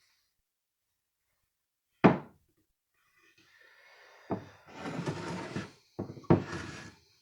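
A sharp knock, then handling noise with more knocks, two of them close together near the end: chainsaw crankcase parts being handled and set down on a workbench.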